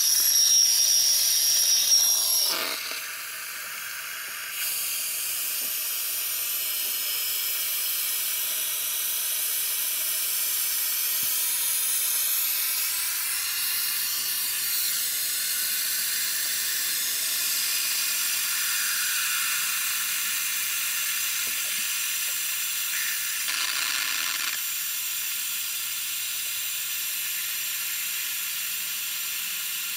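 Compressed air hissing through the venturi of a vacuum coolant filler, drawing a vacuum on the car's cooling system. For the first two seconds or so the hiss is louder and carries a high whistle, then it settles into a steady hiss, with a brief louder spell a little before the end.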